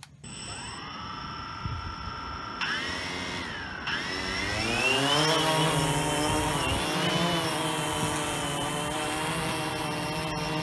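DJI Phantom 2 quadcopter's four brushless motors and propellers running, a buzzing whine that rises in pitch as it lifts off about four to five seconds in, then holds steady with slight wavering while it hovers.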